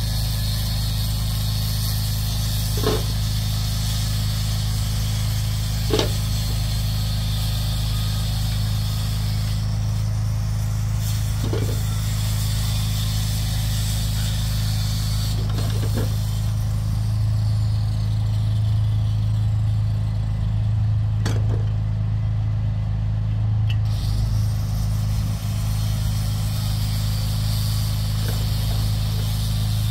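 A motor runs with a steady low hum. About five sharp clinks of bricks being picked up off a pile come a few seconds apart.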